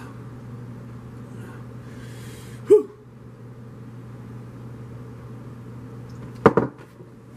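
A glass mug lifted for a drink and set back down on a wooden tabletop, with two sharp knocks close together near the end. A short pitched sound comes just before the three-second mark, over a steady low hum.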